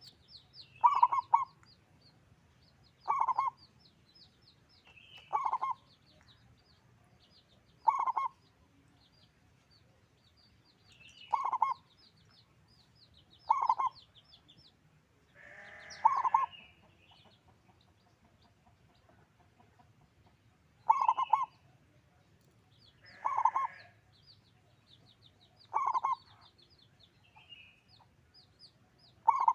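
Zebra dove (perkutut) singing: short cooing phrases repeated about every two to three seconds, eleven in all. Faint rapid high-pitched chirping runs underneath.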